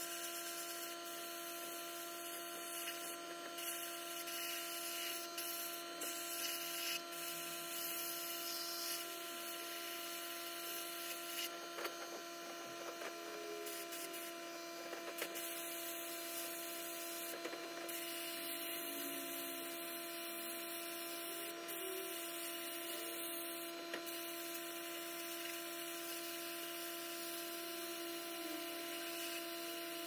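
Abrasive blasting in a sandblast cabinet: a steady hiss from the blast gun stripping a cast iron part, over a constant hum.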